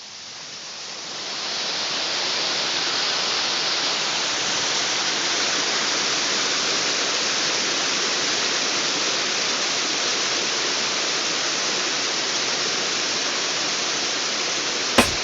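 Steady rushing water, like a waterfall or fast stream, fading in over the first two seconds and then holding even. A single click near the end.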